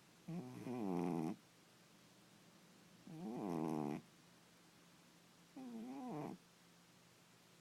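Sleeping cat snoring: three snores about two and a half seconds apart, each about a second long, with a wavering pitch.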